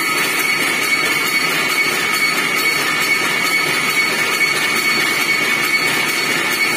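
Automatic power looms weaving insect-screen mesh, running with a steady, dense mechanical clatter and a constant high whine on top.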